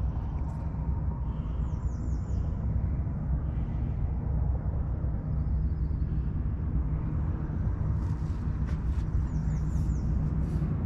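Outdoor wind rumbling steadily on the microphone. A few short, high chirps, likely from a small bird, come twice.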